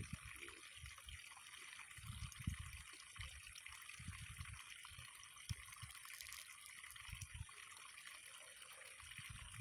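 Faint water trickling over a steady hiss, with soft low rumbles coming and going every second or so.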